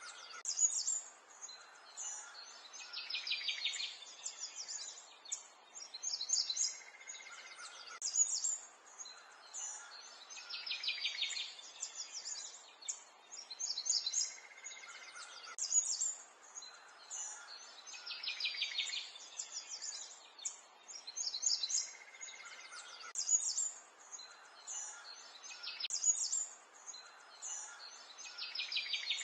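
Birds chirping, with rapid high trills; the same set of calls comes round again about every seven and a half seconds.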